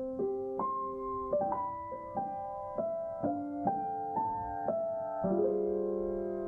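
Background music: soft piano or electric piano playing a gentle melody over sustained chords.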